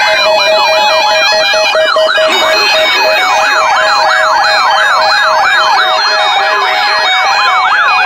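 Several weather alert radios sounding their alarms at once, triggered by a weather warning broadcast. Overlapping rapid siren-like warbles mix with steady on-off beeps.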